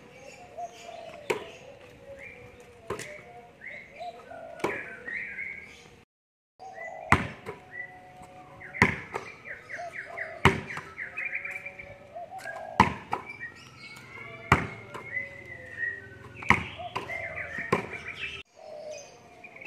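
A basketball being bounce-passed on a concrete court: a sharp slap of the ball on the concrete or into the hands about every two seconds. Birds chirp throughout, and there are two brief gaps of silence.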